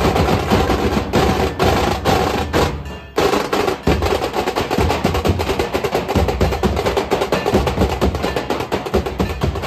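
A group of large Nashik dhol drums beaten with sticks in a fast, dense rhythm, with a short break about three seconds in before the beating comes back in full.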